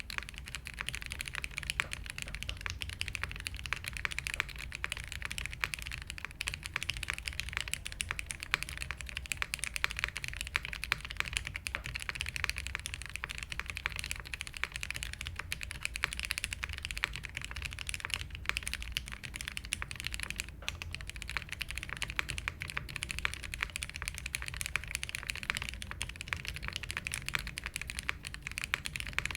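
Continuous typing on a custom mechanical keyboard with lubed and filmed vintage Cherry MX Black linear switches in an aluminium plate with no foam dampening, under GMK keycaps: a dense, steady stream of keystrokes that starts abruptly.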